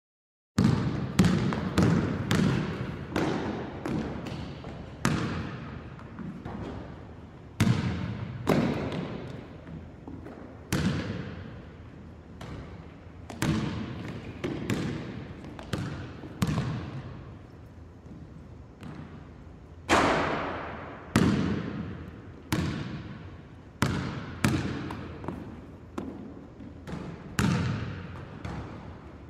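A basketball bounced by a single player, in runs of quick dribbles with pauses between. Each bounce is a sharp thud with a long echo behind it.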